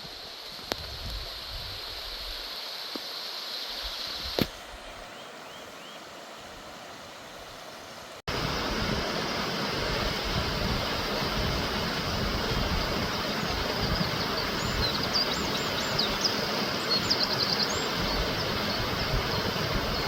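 Steady rush of flowing river water, louder after a cut about eight seconds in, with a few short high bird chirps in the second half.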